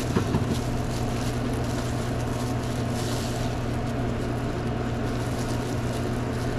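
Steady low electric hum of sandwich-shop counter equipment, with a few faint handling clicks about a second in and a brief rustle around the middle.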